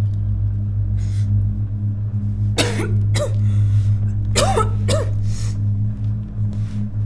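A woman sobbing in two short bursts, about two and a half and four and a half seconds in, over a steady low music drone.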